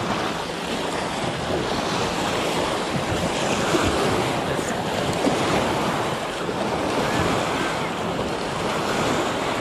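Choppy lake water lapping and splashing against the dock edge and rocks just below the microphone, with wind buffeting the microphone.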